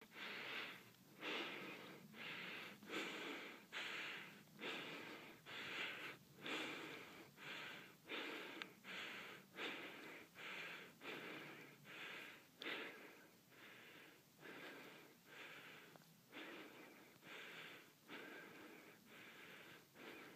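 A person breathing hard close to the microphone, each breath a noisy puff, a little more than one a second, easing slightly in the second half.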